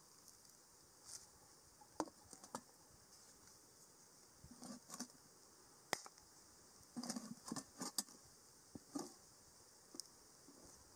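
A few scattered light clicks and soft knocks, bunched together around the middle, over a steady faint high hiss.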